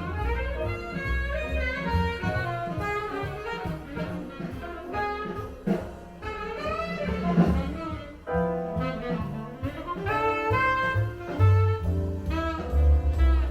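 Jazz with saxophone lead over double bass, played back through Sound Lab electrostatic loudspeakers.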